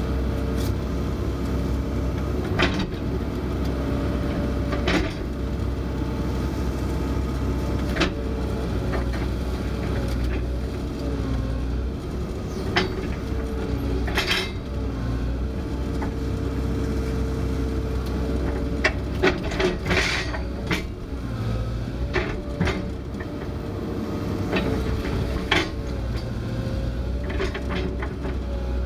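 Kobelco SK160 excavator's diesel engine running under working load, heard from inside the cab, with its pitch shifting as the hydraulics work. Scattered sharp clanks and knocks from the bucket and thumb come through, several in quick succession about two-thirds of the way in.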